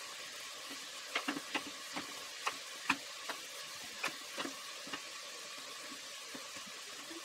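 Kitchen knife slicing a zucchini on a wooden cutting board: about ten irregular knocks of the blade on the board over the first five seconds, fewer after, over a steady background hiss.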